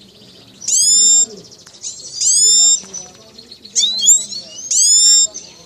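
Grey-headed goldfinch, a mimic, calling loudly four times about a second and a half apart, each call about half a second long and sweeping down in pitch, with a quicker broken call just before the last one.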